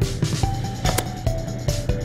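Background music with a steady drum beat and a melody line, about two and a half beats a second.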